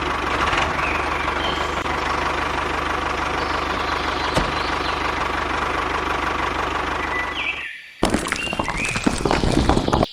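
A small machine's motor running steadily with a constant whine. It fades out and, about eight seconds in, gives way abruptly to loud, irregular crackling and clattering.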